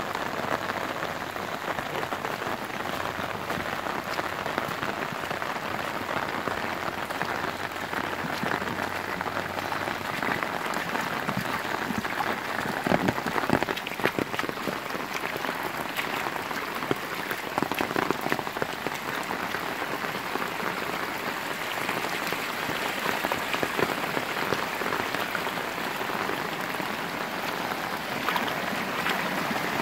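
Heavy rain pouring steadily onto waterlogged ground and sheets of surface water. A few brief louder knocks come about halfway through.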